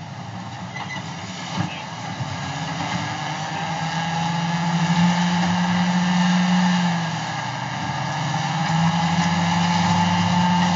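Caterpillar D10T bulldozer's diesel engine running under load as the dozer pushes down a rocky slope, getting louder from about four seconds in, with a faint, slowly rising whine. One sharp click comes near the start.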